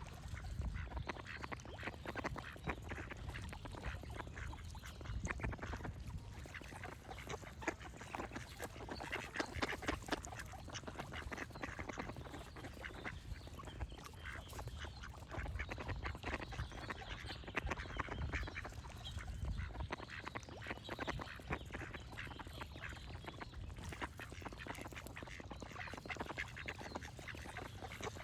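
Ducks quacking over and over in quick succession, with birds singing behind them.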